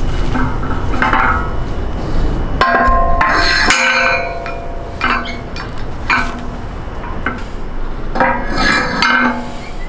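Metal weight plates and collar clinking and clanking against the steel sleeve of a strongman log as it is loaded, in several separate knocks, the loudest about three seconds in ringing briefly.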